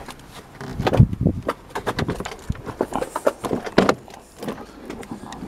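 Plastic interior door card of a Fiat Punto Grande front door being lifted up and off the door: a series of knocks, clicks and rattles as it frees from the top edge, the loudest knock about a second in.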